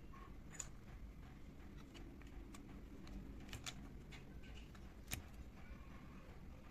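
Faint, scattered light clicks and taps of small kitchen utensils, about five in all, the sharpest about five seconds in, over a low hum.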